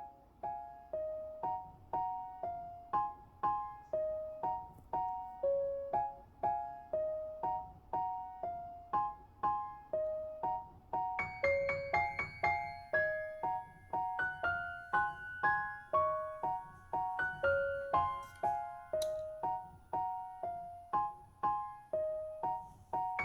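Background music: a gentle keyboard melody of evenly paced, decaying notes, about two a second, with a higher part joining about halfway through.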